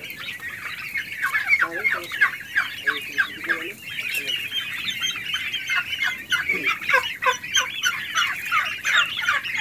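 A flock of young turkeys, about three months old, calling: many high, quick peeping calls overlap, each falling in pitch. The calling grows louder about a second in and keeps up without a break.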